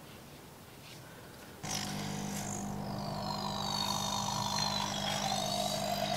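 A small electric air pump switches on about a second and a half in and runs with a steady hum, a high wavering whistle over it, as it pushes air through clear tubing into a ball of slime to blow it up.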